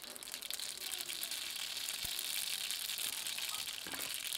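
Seeds sizzling and crackling in hot oil in a frying pan: a steady fizzing hiss dotted with fine pops.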